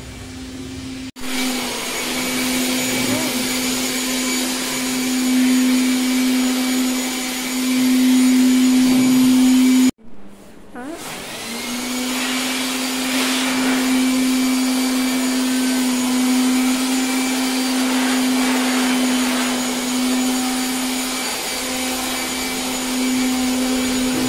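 A steady machine drone, like an electric motor running, with a strong low hum over a hiss. It cuts out suddenly about ten seconds in and starts again a second or so later.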